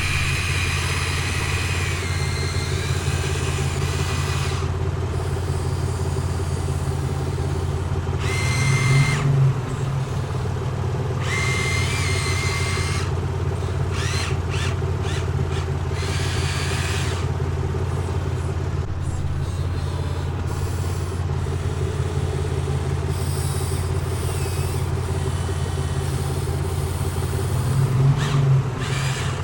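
Excavator running steadily with a low drone, its note swelling louder briefly twice, about nine seconds in and again near the end, with a high whine coming and going.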